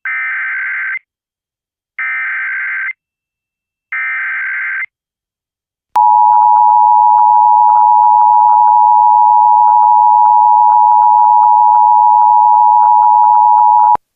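Emergency Alert System header and attention tones: three one-second SAME digital data bursts about a second apart, then about six seconds in the steady two-tone EAS attention signal, held for about eight seconds.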